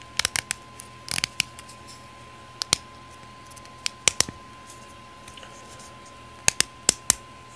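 3D-printed plastic puzzle pieces of a trisected cube clicking and scraping against each other as the tight-fitting third piece is twisted into place, in scattered clusters of sharp clicks.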